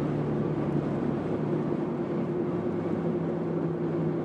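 Steady road and engine noise heard from inside a moving car, with a constant low hum.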